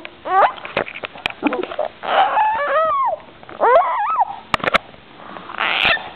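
Baby squealing and laughing in several high-pitched bursts, the pitch sliding up and down. A few sharp clicks about four and a half seconds in.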